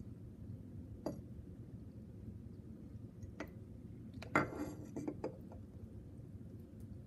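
Plastic stirrer clinking and scraping against a glass beaker while stirring wet, fine-grained clay to work water down into it: single clinks about a second in and near the middle, then a louder run of clinks and scraping just past the middle.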